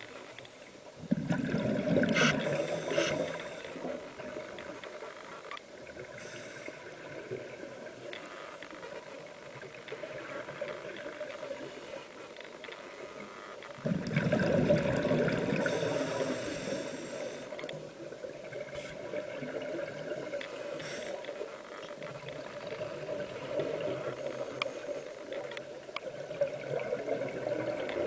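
Water sloshing and splashing, with two louder surges, one about a second in and one about halfway through.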